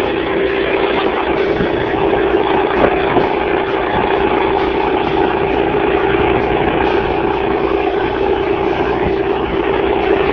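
A 5 hp Briggs & Stratton air-cooled four-stroke outboard motor running steadily at a constant speed while the jon boat is under way, a steady engine drone over wind and water noise.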